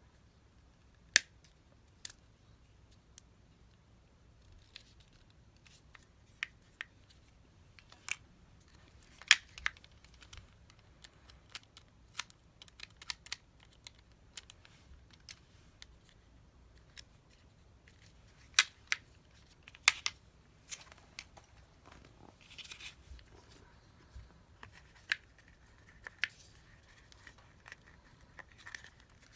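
Irregular sharp clicks and snips of hand work on a Shimano Di2 STI shift lever, with a short rustling scrape a little past the middle.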